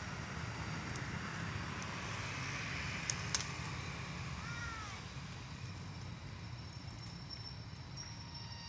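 Steady low background rumble and hiss, with two sharp clicks a little past three seconds in and a short chirp about a second later.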